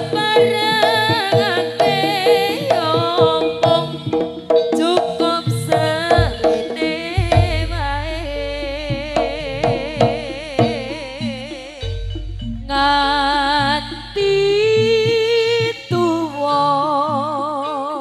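Live Javanese jaranan ensemble music: a melodic lead with a wavering, trilling pitch over steady drumming. A deep low note sustains from about 7 to 12 seconds in.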